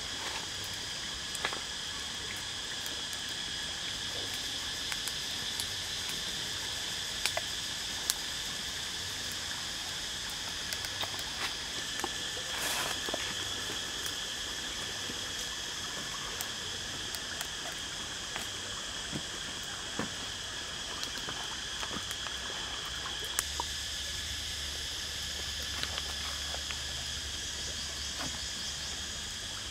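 A steady insect chorus in the forest, a held high drone of several pitches, with scattered small clicks and taps and a brief rustle about halfway through.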